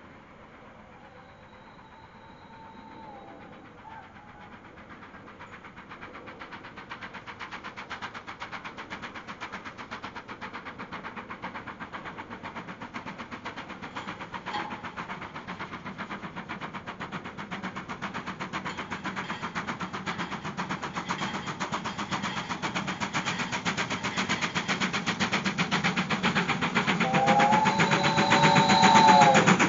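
BR Standard Class 5 4-6-0 steam locomotive 73082 Camelot approaching with its train, its exhaust beats in a fast even rhythm that grows steadily louder as it nears. Its whistle sounds for about two seconds near the end, and a fainter whistle is heard a second or so in.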